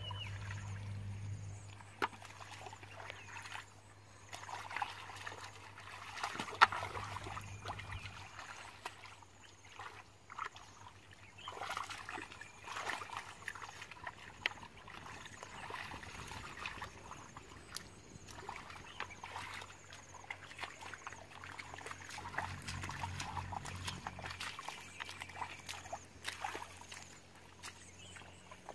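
Shallow muddy water squelching and splashing as hands grope through the mud for fish and feet wade through it, coming in irregular spells with a few sharp splashes.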